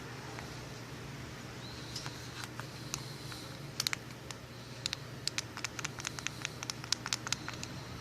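A run of small, sharp clicks and scratches from handling the generic SJ4000-style action camera, a few per second from about halfway through, over a steady low hum.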